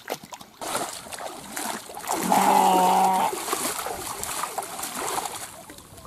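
Water splashing as a sheep is held and scrubbed in shallow river water, with one long bleat from the sheep about two seconds in, lasting about a second.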